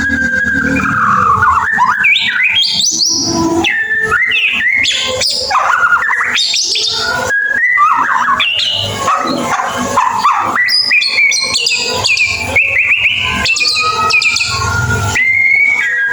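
White-rumped shama singing in a nonstop stream of varied whistles, glides and fast chattering notes, the 'ngeriwik' style of murai batu song.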